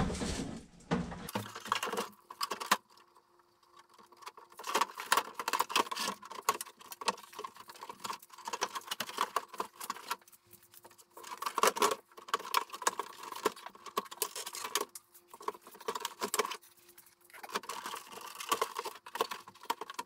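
Plastic outer casing of a portable air conditioner being handled and clipped back onto its frame: irregular clusters of clicks, knocks and light rattles, with a few short quiet gaps.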